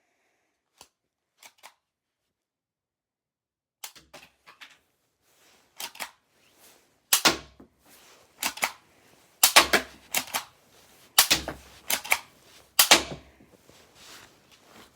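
Toy M1911 pistol being worked, giving sharp plastic clicks and snaps: a few faint ones at first, then from about four seconds in a run of louder snaps, roughly one a second.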